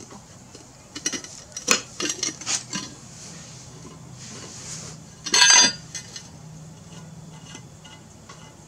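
Metal clinks and knocks of a valve-stem tool and a rubber snap-in valve stem against a steel wheel rim as the stem is worked into its hole, scattered over the first few seconds, with one louder burst lasting under half a second about five and a half seconds in.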